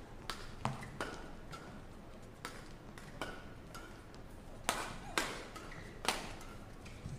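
Badminton rackets striking a shuttlecock in a fast doubles rally: sharp hits at irregular intervals of about half a second to a second, with a few short squeaks from shoes on the court.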